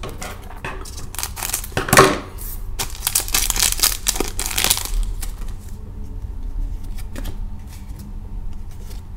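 A Panini hockey trading-card pack being torn open by hand: the wrapper rips and crinkles in a few loud bursts over the first five seconds, loudest about two seconds in. Quieter rustling follows as the cards are slid out and handled.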